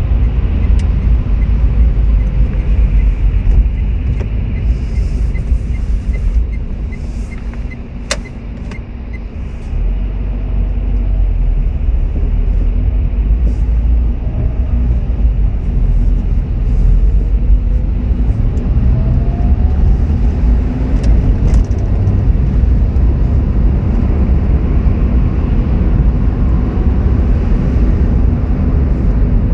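Car driving on a wet city road, heard from inside: a steady low rumble of engine and tyres. It eases about eight seconds in as the car slows to a stop in traffic, then builds again with a slowly rising tone as it pulls away. A row of light, regular ticks sounds in the first several seconds.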